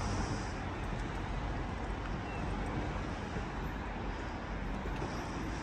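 Steady low rumble under an even hiss, with no distinct event and no change in level.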